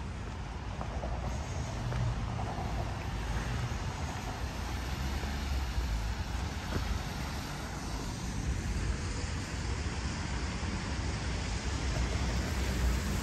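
Road traffic on a wet street: a steady low engine rumble with tyre hiss from cars and vans driving past, growing louder near the end.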